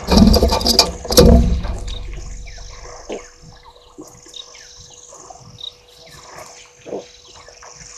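African elephant giving two loud calls in the first second and a half, then quiet. Birds chirp faintly in the background throughout.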